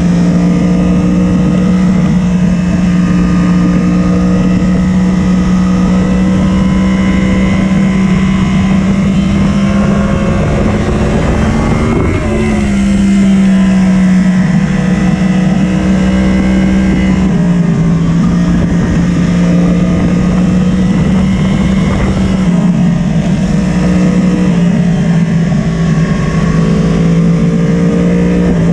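Yamaha sport bike engine running hard, heard from a camera mounted on the bike with wind on the microphone. The engine note holds fairly steady, with its revs rising and dropping a few times as the rider works the throttle and gears through the corners.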